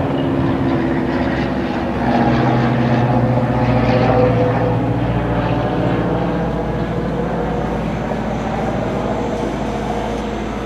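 Kintetsu electric train running past the level crossing: a steady rumble of wheels on rail with a held motor hum, easing off slowly toward the end.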